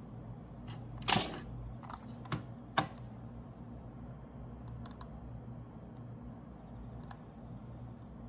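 A few sharp clicks and knocks, the loudest about a second in, then a couple of fainter clicks over a steady low hum.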